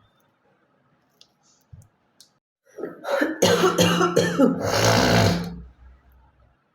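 A woman coughing hard several times, then hawking with one long harsh rasp as she clears phlegm from her throat, starting about three seconds in. It is a chesty cough from a bad cold she has.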